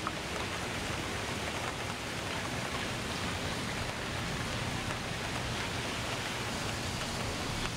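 Red road base, mostly sand with small rocks, sliding and pouring out of a tipped dump trailer bed: a steady rushing hiss with scattered small ticks of stones, over a faint low hum.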